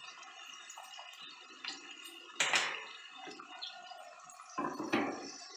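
Hands pressing coriander and mint leaves down into a mixer-grinder jar and moving the jar: a few brief rustles and knocks, the loudest about two and a half seconds in, over a faint steady hum.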